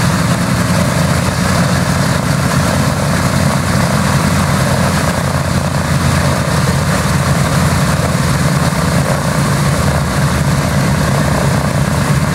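B-17 Flying Fortress's Wright Cyclone nine-cylinder radial engines idling with propellers turning: a loud, steady, low-pitched rumble.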